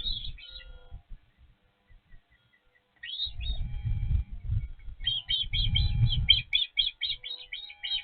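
Osprey calling at the nest: a couple of short high chirps, then near the end a fast run of about a dozen high chirps, roughly four a second, over a low rumble.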